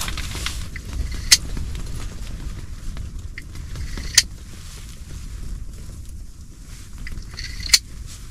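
Strong wind buffeting the ice-fishing tent, a steady low rumble, with three sharp clicks (about a second in, around four seconds and near the end) as a small winter fishing rod is handled and its bait lowered through the ice hole.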